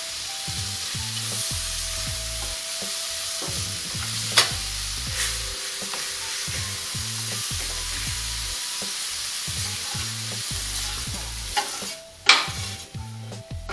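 Sliced vegetables sizzling and frying on a hot flat-top griddle as a metal spatula stirs and turns them. There are a couple of sharp clacks of the spatula on the griddle, the louder one near the end, and the sizzle dies down in the last couple of seconds.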